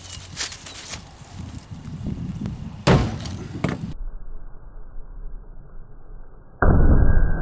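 Bronze sword blade striking a car's roof edge and door frame: one sharp, loud metal impact about three seconds in with a smaller clatter just after. The sound then turns muffled, and a loud, dull impact comes near the end.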